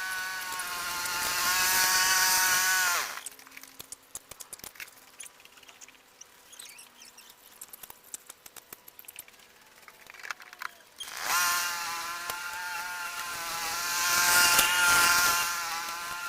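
Briggs & Stratton 140cc lawn mower engine running, then slowing and stopping about three seconds in. After about eight seconds of low clicks and rattles, the engine starts again and runs steadily.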